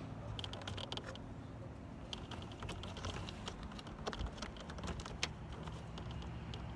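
Light, irregular clicks and taps of small hardware being handled and started by hand as the mounting screws go onto a car door mirror, with a sharper click about five seconds in.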